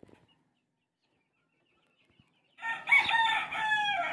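A chicken gives a loud, drawn-out call, falling in pitch, starting about two and a half seconds in and lasting over a second.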